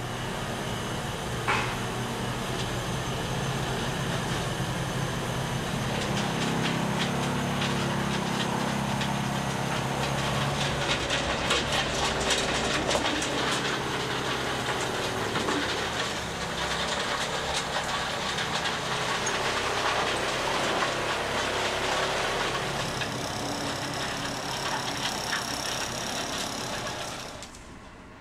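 Plasser & Theurer SFM Compact ballast regulating machine running on the track while its ploughs push and scrape ballast stones. There are many small clicks and rattles of stone in the middle stretch. The sound drops off shortly before the end.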